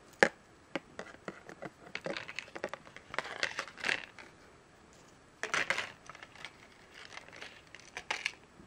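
Small metal-and-plastic keychain being handled: scattered clicks and light rattles of a ball chain and plastic charm, with crinkling of thin plastic packaging. A single sharp click a quarter second in is the loudest sound.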